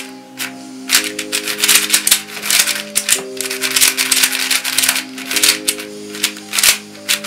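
YJ MGC 4x4 magnetic speedcube being turned quickly by hand: rapid runs of clicking and clacking as the layers snap into place, the cube still dry and unlubricated out of the box. Background music with held notes that change every second or so plays underneath.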